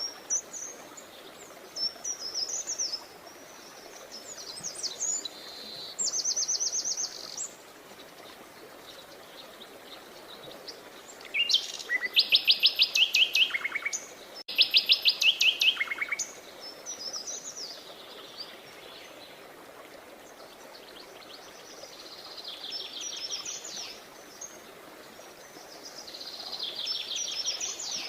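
Several songbirds singing: scattered high chirps and short trills. Two loud, rapid trills come about halfway, one right after the other, each ending in a few lower notes. A steady faint hiss lies underneath.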